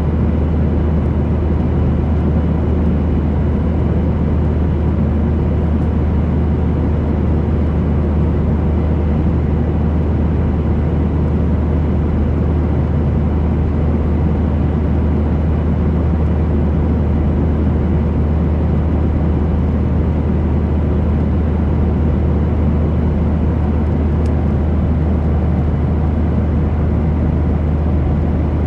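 Airliner engine noise heard inside the cabin in flight: a steady deep drone of engines and rushing air, with a faint steady whine above it.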